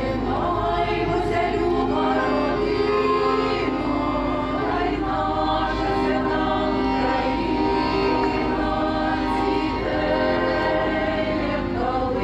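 Ukrainian folk choir singing in harmony, with long held notes that change every second or two.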